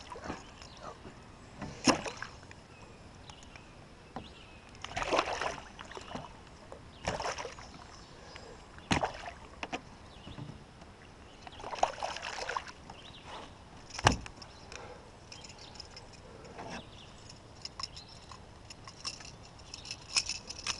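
A small hooked striped bass splashing and thrashing at the surface beside a canoe, in scattered short bursts, with a few sharp knocks, the loudest about two-thirds of the way through. Near the end come light metallic clicks as the lure's hooks are worked free with pliers.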